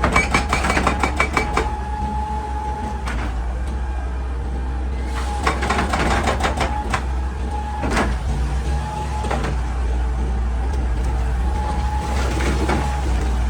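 Hitachi EX200 hydraulic excavator working rock: its engine runs with a steady low rumble and a whine that comes and goes, broken by several bursts of sharp knocks and cracks as rock is struck and broken.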